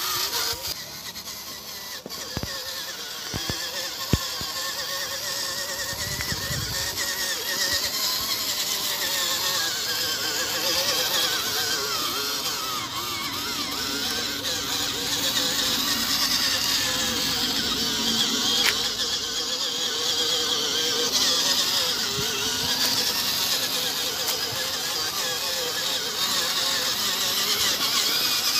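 Homemade PVC radio-controlled dump truck, loaded with soil, driving over dirt: its motor and gearbox whine continuously with a wavering pitch. A few clicks come early, with a sharp knock about four seconds in.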